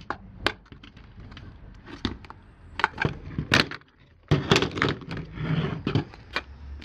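Hard plastic body shells of a Jacuzzi J-D300 pool cleaner being pulled apart and handled: a string of clicks, knocks and rattles of plastic parts, with a busier cluster of knocks about four seconds in.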